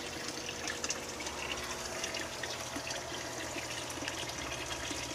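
Steady trickling of running water, with a faint hum beneath it.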